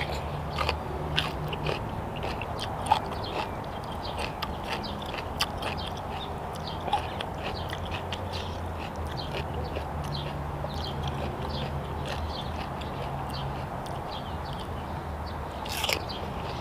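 Close-up chewing and lip-smacking: a man eating grilled chicken and pounded long-bean salad with his fingers, with many small wet mouth clicks over a steady low hum.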